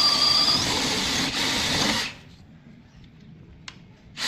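Power drill running at speed with a steady whine, stopping abruptly about two seconds in; after a quiet stretch with a few light clicks, it starts again right at the end.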